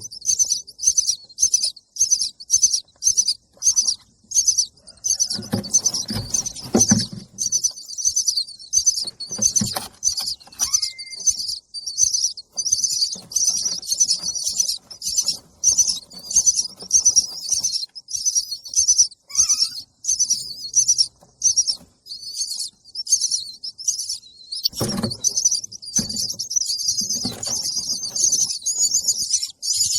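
Baby bird's begging calls: a rapid train of high-pitched chirps, about two or three a second, running almost together near the end. Twice, a short low rustle or knock sounds under the calls.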